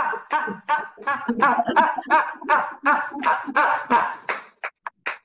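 A woman's rapid 'ha-ha-ha' laughter-like exhalations, about three a second, pushed out on a single breath as a laughter-yoga 'pump' breathing exercise. Near the end they turn short and faint as her air runs out, then stop.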